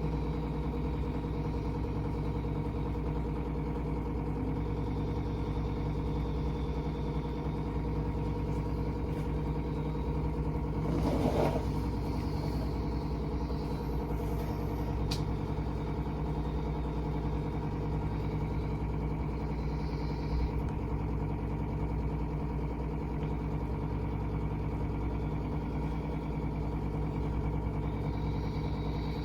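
A steady, even hum that does not change, with a brief rushing noise about eleven seconds in.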